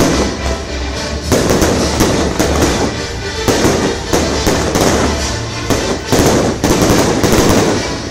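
Aerial fireworks shells bursting in rapid succession, a dense run of overlapping bangs.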